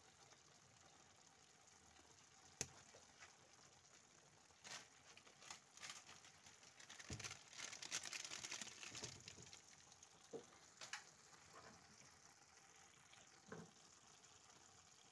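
Thick chickpea, potato and tomato stew simmering in a pan: faint bubbling and sizzling with scattered pops and a sharp click. The sizzling is busier from about seven to nine seconds in.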